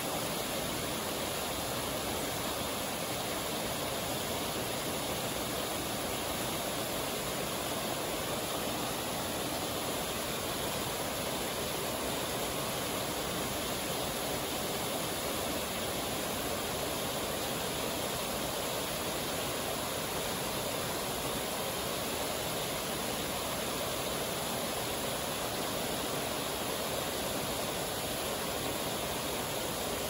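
Waterfall and river water rushing steadily over rock ledges into a pool, an even, unbroken roar of falling water.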